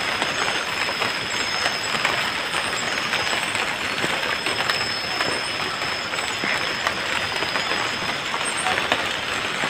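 Light rain falling on forest foliage: a steady hiss dotted with many small drop ticks. A thin, steady high tone runs above it.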